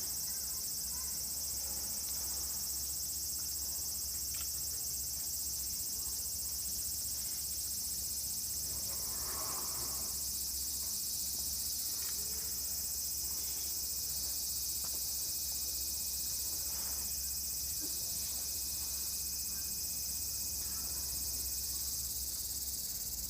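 Steady, high-pitched chorus of summer cicadas, unbroken throughout, over a steady low hum.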